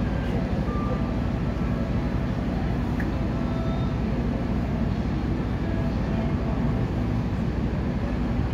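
Steady low mechanical rumble of urban background noise, with a few faint tones above it and a single click about three seconds in.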